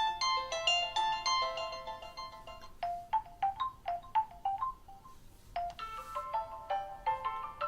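Windows Phone stock ringtones on a Nokia Lumia 1520, played through the phone's small speaker: short melodic chime and mallet-like note tunes, with a brief pause about five seconds in before another tune starts.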